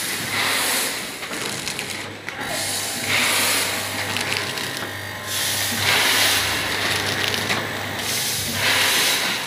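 Automatic packing machine running: a steady low motor hum, with a hissing rush about every two to three seconds as it cycles.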